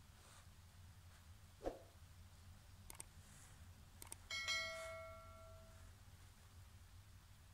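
Two pairs of sharp mouse-style clicks, then a single bright bell chime that rings out and fades over about a second and a half: the sound effect of a YouTube subscribe-and-notification-bell animation. Earlier there is one short soft thump.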